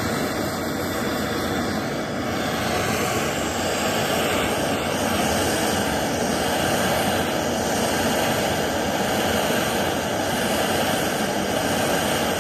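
Gas blowtorch flame running steadily, a constant rushing noise, while heating a seized threaded joint at a rifle's muzzle to break its seal.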